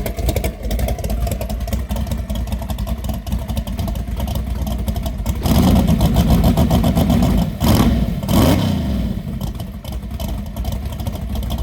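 All-motor Mustang drag car's engine idling with a fast, choppy pulse. About five seconds in it is revved for roughly two seconds, then blipped twice in quick succession before dropping back to idle.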